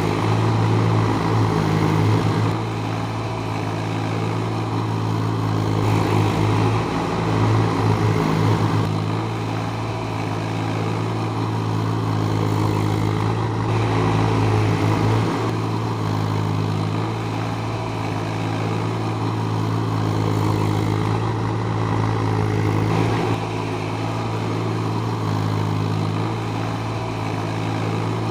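JCB 30 Plus mini excavator's diesel engine running steadily. Its level rises and falls a little every few seconds as the machine works.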